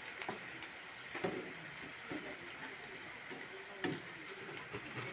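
Rice-flour malpua frying in hot oil in a pan, a steady sizzle, with a few light knocks of a spatula against the pan, the sharpest about a second in and near four seconds.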